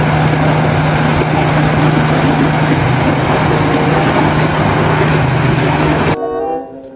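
Bulldozer engine running steadily, a loud even noise with a constant low hum, cutting off abruptly about six seconds in.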